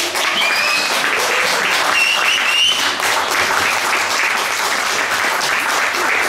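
Audience applauding steadily, with a couple of short high calls over the clapping about half a second and two seconds in.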